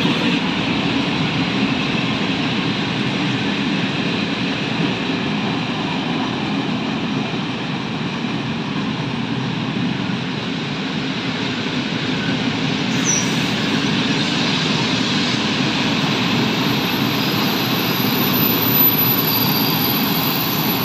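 Freight train of cement hopper wagons, hauled by an ET22 electric locomotive, rolling past close by: a steady rumble and clatter of wheels on the rails. A thin high whine joins in over the last few seconds.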